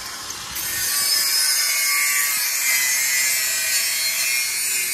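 Handheld angle grinder cutting through a tractor's steel exhaust pipe, the abrasive disc grinding steadily with a faint whine. It picks up again about half a second in after a brief let-up.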